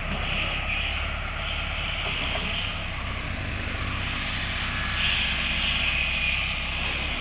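Mahindra Arjun 605 tractor's diesel engine running steadily while it powers the front loader's hydraulics lifting the bucket, with a hiss that grows louder about five seconds in.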